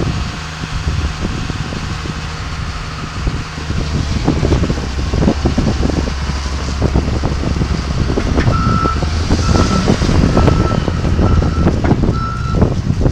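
John Deere 544K wheel loader's diesel engine running steadily. About two-thirds of the way in, its reversing alarm sounds five beeps, a little under a second apart: the loader is backing up.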